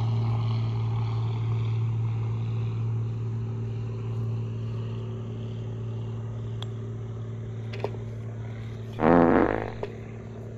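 A steady engine drone, fading slowly, with a short louder burst of sound about nine seconds in.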